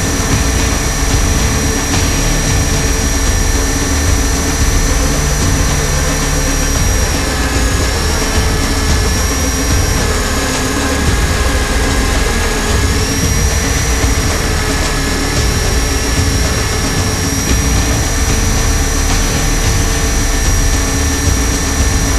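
RC helicopter heard from on board: the electric motor of a T-REX 500 running under a UH-60 Black Hawk scale body, giving a steady high whine over a loud rumble of rotor wash and wind. The whine shifts slightly in pitch a few times, around a third to a half of the way through.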